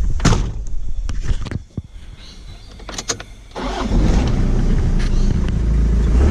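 A few clicks and knocks, then a car engine starts a little past halfway and keeps running with a steady low rumble.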